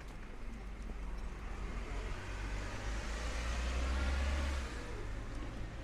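A motor vehicle driving past close by: a low rumble and tyre hiss swell to a peak about four seconds in, then drop away.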